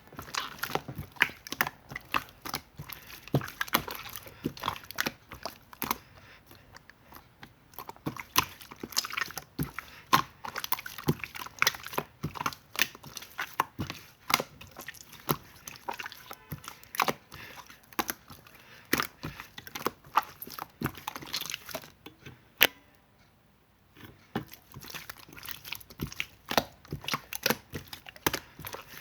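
Slime being squished and worked by hand, making dense, irregular clicks and pops, with a pause of about a second about three-quarters of the way through.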